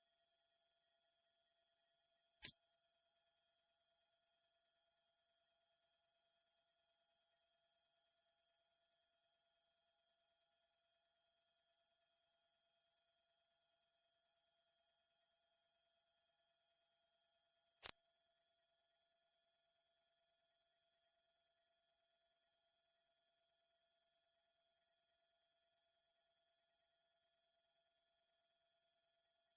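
Dog whistle sound effect: one steady, very loud, very high-pitched pure electronic tone held without a break, with two faint clicks, about two seconds in and again about eighteen seconds in.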